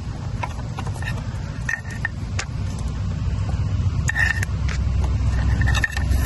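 Scattered light clicks and clinks of cables and plastic connectors being handled and pushed through the e-bike's battery mount, over a steady low rumble.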